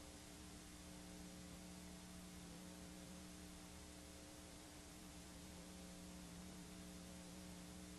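Near silence: a faint steady hiss with a low electrical hum, the noise floor of an analogue video recording playing a blank stretch with no programme on it.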